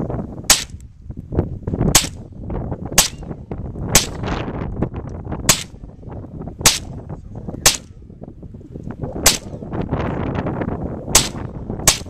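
A stainless pistol being fired, about ten single shots at a steady pace of roughly one a second, each a sharp crack.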